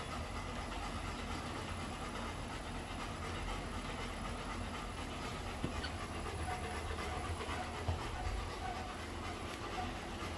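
Golden retriever panting while it walks on a running treadmill, over the treadmill's steady low motor hum and belt noise.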